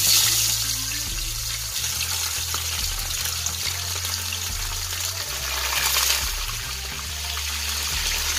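Hot oil sizzling hard as whole seasoned porgy fish fry in a pan. The sizzle jumps in suddenly as the first fish goes into the oil, then swells again about six seconds in as a second fish is laid in.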